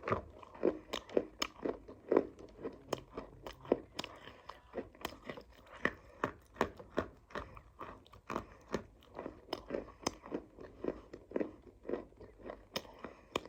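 Close-up biting and chewing of hard, dry clay (matti), with sharp, irregular crunches several times a second.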